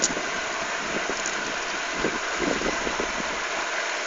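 Steady rushing noise, with soft rustling and scratching as a fishing net is handled close by.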